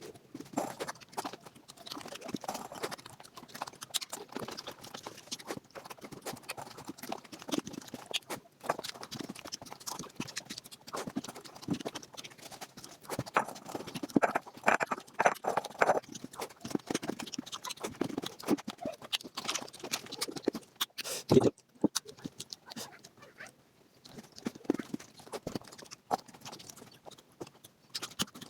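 Eating sounds played back sped up: rapid, dense chewing and wet mouth smacking, with a sharper knock about 21 seconds in.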